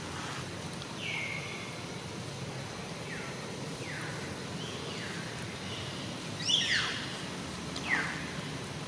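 A series of short, high whistled animal calls over outdoor background noise, each mostly falling in pitch, coming about once a second or two, with the two loudest near the end.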